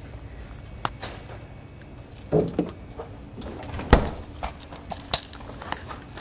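Handling noise from a handheld camera being moved around: a few scattered clicks and knocks, the loudest about four seconds in, with a short creak about two and a half seconds in.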